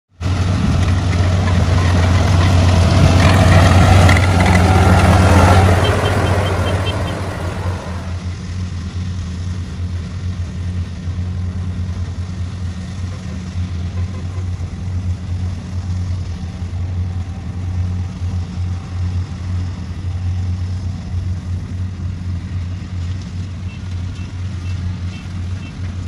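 Kubota DC-70X rice combine harvester running while it harvests, a steady low diesel engine drone. It is loud and full at first, then drops suddenly to a quieter, even drone about eight seconds in.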